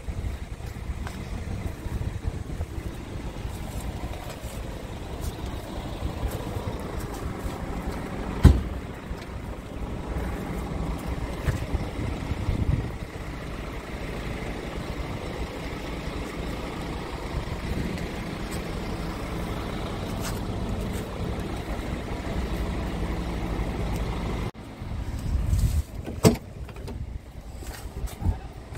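Scania P380 tipper truck's diesel engine idling with a steady low rumble. A sharp knock about eight seconds in and another near the end.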